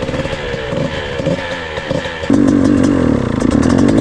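A 125 cc two-stroke dirt bike being kick-started: about two seconds in the engine fires and revs loudly, its pitch wavering up and down unevenly. A towel left in the airbox under the air filter is choking its intake, and it doesn't sound good.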